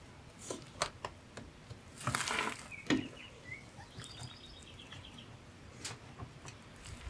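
Scattered clicks and knocks of a plastic trim tool prying at the retaining clips of a Toyota Highlander's rear door trim panel, with a louder scrape and rustle of the panel about two seconds in and another knock just after.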